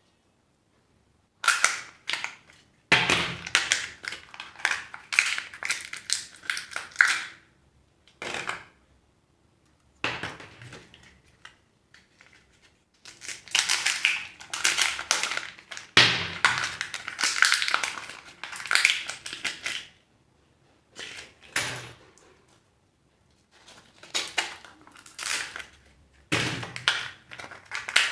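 Surprise eggs and their plastic wrappers being handled and opened by hand: bursts of crinkling, crackling and snapping plastic, several seconds each, with short pauses between.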